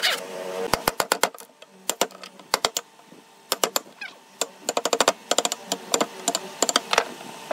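Wood chisel struck repeatedly with a wooden block used as a mallet, chopping out the waste between saw cuts in a timber beam to form a lap joint. Sharp wooden knocks come in quick, irregular clusters of a few blows, with short pauses between them.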